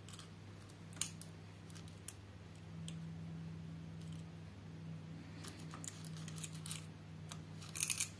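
Faint, scattered clicks and light handling noises from a plastic syringe being worked against a cast-iron radiator plug, with a quick cluster of clicks near the end, over a steady low hum.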